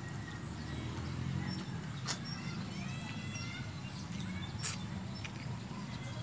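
Eating by hand: soft chewing and mouth sounds with two sharp clicks, the louder one about three-quarters of the way in, over a steady low rumble and faint bird chirps.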